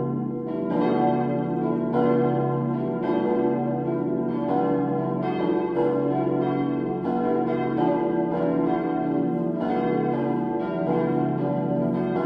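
Full peal of four 1922 cast-steel church bells, tuned B, D, E and F-sharp, swinging and striking in an irregular overlapping sequence, their ringing continuous. The tuning is unfavourable according to the uploader: the low B bell stands out, and the D bell's clapper strikes mostly on one side only.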